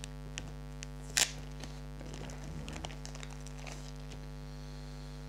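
A plastic first-aid packet is torn open with one sharp crackle about a second in. Lighter plastic rustles and clicks follow as a folded triangular bandage is pulled out. A steady electrical mains hum runs underneath throughout.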